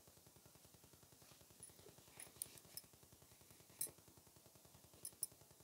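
Near silence: quiet room tone with a few faint, short clicks or taps scattered through it, the sharpest near the end.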